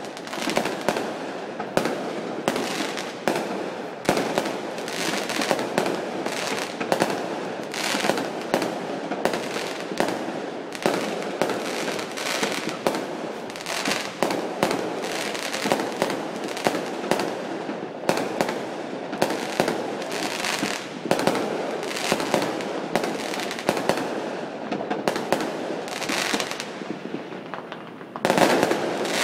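Many fireworks going off at once: a dense, unbroken run of bangs and crackling, with a louder burst near the end.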